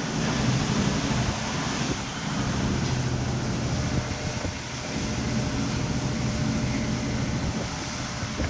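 A motor running steadily with a low drone, mixed with wind noise on the microphone.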